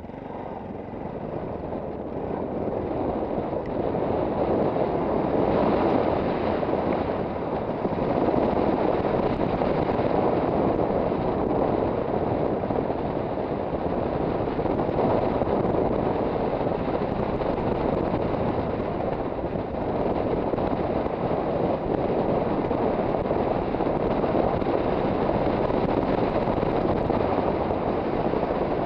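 Wind rushing over a motorcycle-mounted camera's microphone, building over the first few seconds as the bike gets under way and then holding steady, with the Yamaha XT660Z Ténéré's single-cylinder engine running underneath.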